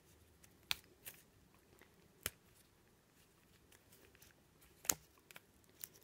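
Faint creaks and a handful of sharp clicks from green willow rods being bent and pushed into woven willow, the loudest click about five seconds in.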